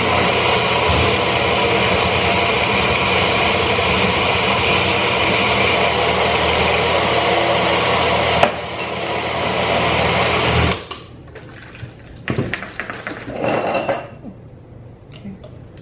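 Personal blender motor running steadily as it blends a green smoothie, its note changing with a click about eight and a half seconds in and stopping about two seconds later. Then clatter and knocks as the blender cup is lifted off the base and handled.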